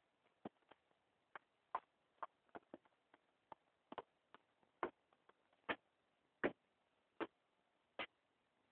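Irregular light clicks and taps, about two a second, some slightly longer and scuffing, from seven-week-old kittens playing.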